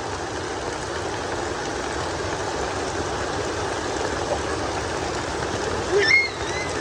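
Steady rush of heavy rain falling, an even hiss with no break. About six seconds in there is a brief high-pitched call.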